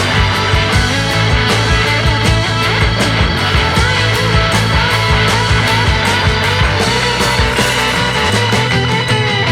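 Background music: rock with electric guitar and a steady beat; the bass drops out briefly near the end.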